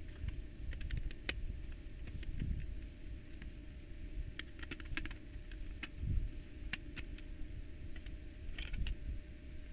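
Light, irregular clicks and taps of a plastic mixer casing and its circuit boards being handled, with a few dull low thumps, the loudest about six seconds in.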